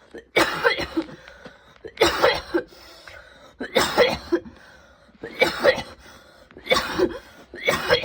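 A woman's intense coughing fit: about six bouts of two or three hard coughs each, coming roughly every second and a half with short pauses between.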